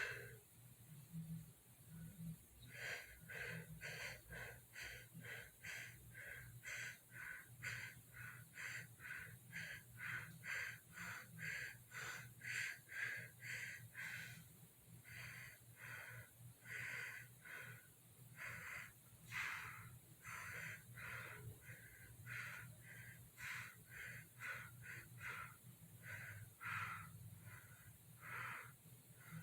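A person's breath escaping in short, faint puffs or snorts, about two a second and a little irregular, while trying to hold the breath with the nose plugged. A steady low hum sits underneath.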